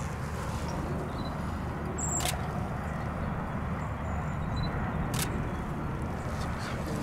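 Two sharp camera shutter clicks, about two seconds and five seconds in, over a steady low outdoor rumble.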